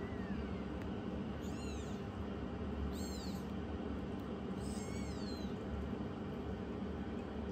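Kitten mewing: four short, high-pitched mews spaced about a second and a half apart, the first one faint, over a steady low hum.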